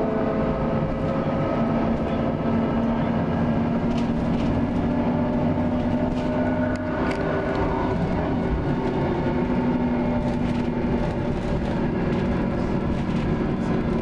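Inside a VDL Commander bus running at speed: a steady drivetrain drone and whine, with the grinding from the rear that comes on at high speed, and a few light rattles.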